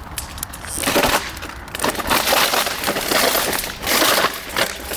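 Plastic guttering fitted over the rear tyre of a Surron Light Bee electric dirt bike scraping and cracking on tarmac as the wheel spins and slides, the plastic breaking up and coming off. The loud, rough scraping starts about a second in and swells and falls as the bike slides.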